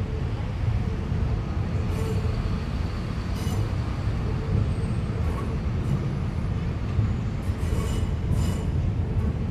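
Electric multiple-unit passenger train running over a steel railway bridge, a steady low rumble with a few brief sharp clicks scattered through it.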